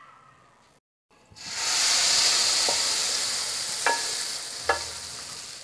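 Hot oil tempering (tadka) with curry leaves and dried red chillies sizzling in cooked dal. The sizzle starts suddenly about a second in and slowly fades, while a wooden spoon stirring it in knocks against the pot three times.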